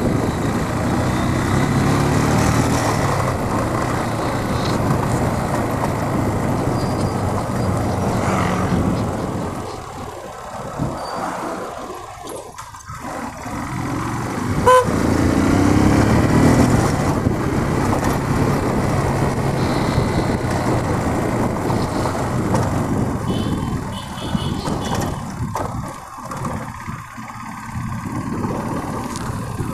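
Motorcycle engine running as it is ridden at low speed, heard from the rider's seat. It quietens for a few seconds around the middle as the bike slows, and a short horn toot sounds about halfway through.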